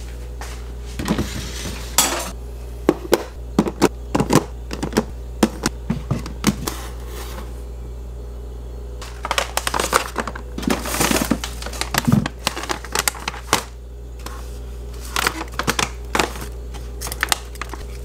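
Groceries being handled and unpacked: plastic packaging crinkling and items knocking and clattering on a hard surface in scattered bursts, over a steady low hum, with a lull near the middle.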